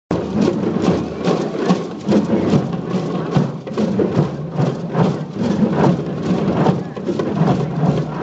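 A large group of hand drums beaten together, many children striking at once, making a dense, loud run of beats with no pause.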